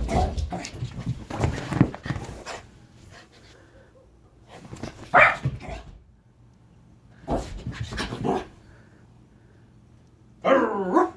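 Rat terrier barking and whining in a series of separate outbursts, the last a short pitched, wavering whine near the end.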